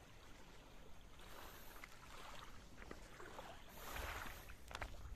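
Faint wash of small waves on a sandy shore, swelling about four seconds in.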